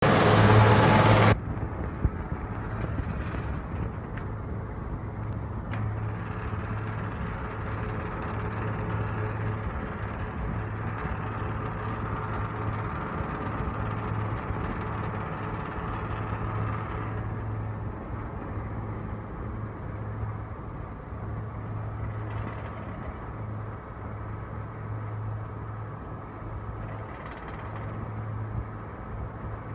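Waste-processing shredder machine running, its rotor driven by a motor through V-belts and pulleys: a steady low mechanical hum. A brief loud burst of noise at the very start.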